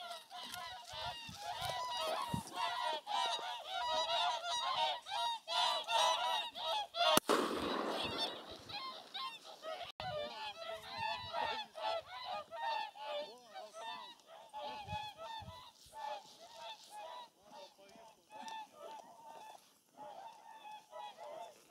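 A large flock of big white waterfowl calling in flight: many overlapping honking calls, densest in the first half and thinning out towards the end. A brief rush of noise about seven seconds in.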